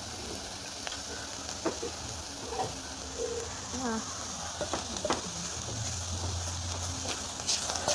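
Minced beef and sliced onions sizzling in oil in a pan, with a wooden spoon scraping and knocking against the pan as they are stirred, a few sharper knocks near the end.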